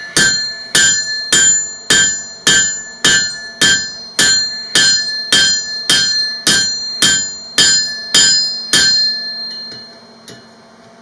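Blacksmith's rounding hammer striking hot steel on an anvil with its round face, drawing out a spike-knife blade. About sixteen steady blows come a little under two a second, each ringing brightly. The hammering stops about nine seconds in.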